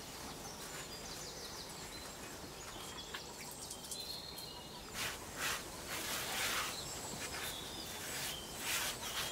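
Quiet outdoor background noise. In the second half come a few soft, short scrubbing sounds as a hand rinses and wipes out a stone mortar.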